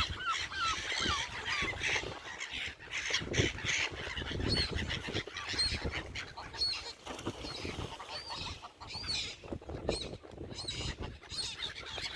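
A flock of gulls and waterfowl calling: honking calls mixed with short, high, arching cries repeated every second or so.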